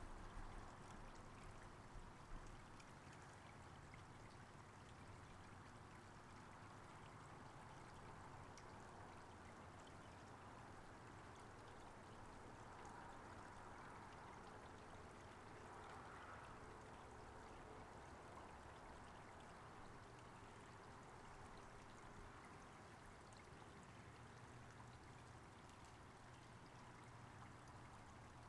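Faint, steady trickle of a small woodland creek running over rocks.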